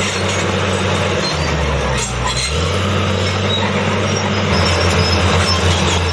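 Case 1150G crawler dozer's diesel engine running under load while cutting a road, its note shifting pitch several times, over the clatter and squeal of its steel tracks.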